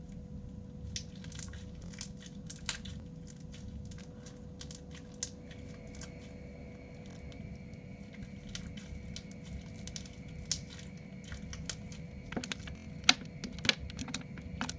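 Sticky bead-filled crunchy slime being squished and pulled apart by hand: scattered small clicks and crackles of the beads, coming thicker and louder near the end, over a faint steady hum.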